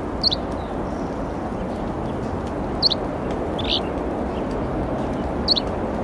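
Dark-eyed junco giving four short, high chip calls, each a quick downward flick, spread over a few seconds against a steady rushing background noise.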